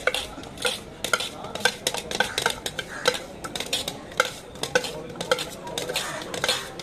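Metal spoon stirring and knocking inside a steel tumbler, mixing chaat, with a short ringing clink about twice a second.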